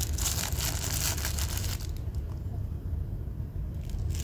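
Rustling and light clicking of a lighter box and its packaging being handled, dense for the first two seconds and then quieter, over a steady low hum.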